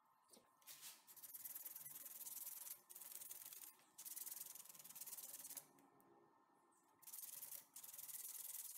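Sandpaper rubbed by hand over a wooden knife handle in quick back-and-forth strokes. The sound is faint and comes in runs of one to two seconds with short breaks, and there is a longer pause about halfway through.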